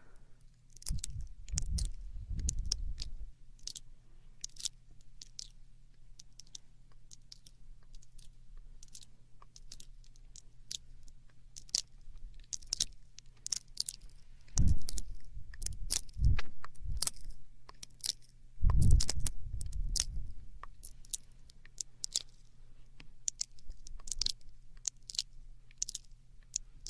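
ASMR mouth sounds close to a binaural microphone: a steady stream of wet clicks, smacks and tongue pops, with a few louder low thumps about a second in, about halfway and about two-thirds through.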